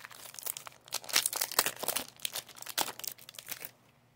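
Foil Pokémon booster pack wrapper crinkling and being torn open, a rapid run of crackles that stops about three and a half seconds in.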